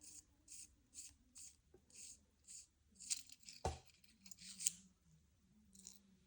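Titanium pen being unscrewed by hand: faint, even rasps of the threads about twice a second, then a few louder scrapes and one sharp metal click a little past halfway.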